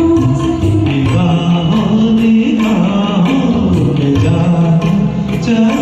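Hindi film-song karaoke backing track playing a melodic instrumental passage, with held, gliding melody notes over a steady beat.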